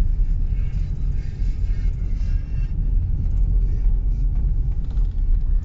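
Steady low rumble of a Subaru driving on a dirt road, heard from inside the cabin: tyre and road noise with the engine underneath.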